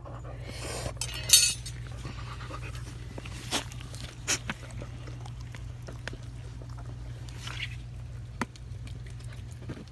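Labrador retriever panting, with a few sharp clicks and knocks; the loudest sound is a short noisy burst about a second in. A steady low hum runs underneath.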